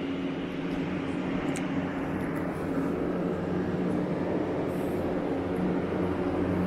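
Steady hum of building ventilation: a low drone with an even rushing noise over it.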